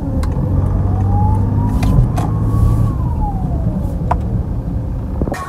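Toyota Vigo pickup heard from inside the cab, the engine pulling under acceleration with a whine that rises slowly for about two and a half seconds, then falls away as the throttle is lifted.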